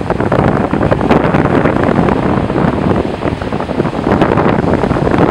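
North Sea surf breaking and washing up a flat sandy beach, a steady rushing wash that swells and eases, with wind buffeting the microphone.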